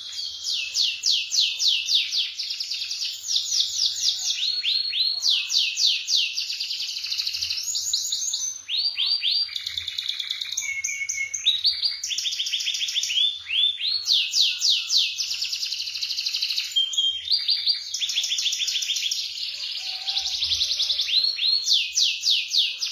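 Canary singing a long, nearly unbroken song of fast rolling trills, each a rapid string of repeated high notes. It switches from one trill to the next with only brief breaks.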